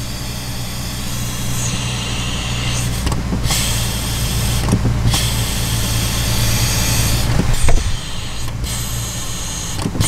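Air hissing from the vacuum brake booster of a 2008 Jeep Wrangler JK as the brake pedal is held part way down, over the steady idle of its 3.8-litre V6. The booster is leaking vacuum through a failed rubber seal inside it. The hiss starts about two seconds in, breaks off briefly twice, and eases after a short thump near the end.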